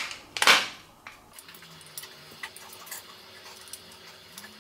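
Hard plastic clicks and knocks from handling the plastic parking-sensor bar while its batteries are fitted: a loud click about half a second in, then faint scattered taps.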